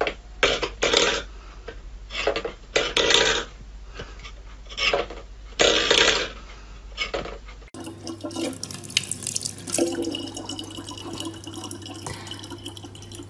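A run of short, loud separate noises, then, a little past halfway, a thin stream of tap water running steadily into a plastic water bottle over a low hum.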